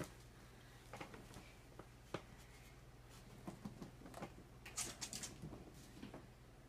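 Faint, scattered light taps and patter of a cat's paws scampering across a hardwood floor, with a low steady hum underneath.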